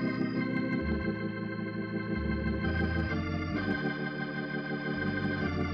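Closing music of sustained organ chords over a bass line that moves every second or so.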